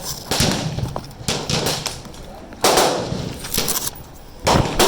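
Rifle shots at a shooting range, about five in quick succession roughly a second apart, each with a ringing echo trailing after it.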